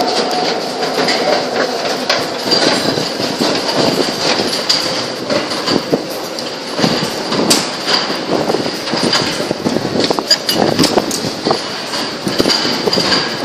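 Underground metro station noise: a steady mechanical rumble with a faint high whine, cut through by footsteps and many short clacks from the ticket gates.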